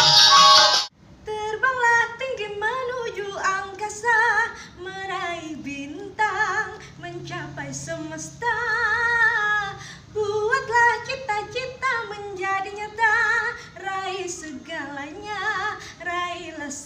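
Loud stage music cuts off about a second in; then a woman sings unaccompanied, a slow melody with long held notes and a strong vibrato.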